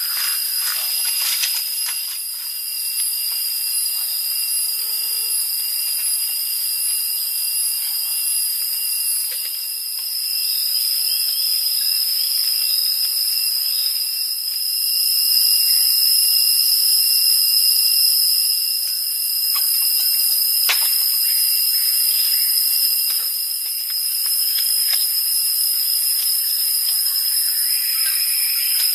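Chorus of forest insects trilling with steady high-pitched tones, swelling and easing in waves. A single sharp click sounds about two-thirds of the way through.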